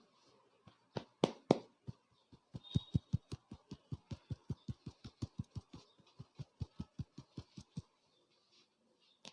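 Rapid rhythmic hand slaps of a barber's percussive head massage, about five light strikes a second for around five seconds. Two louder, sharper strikes come just before the series begins.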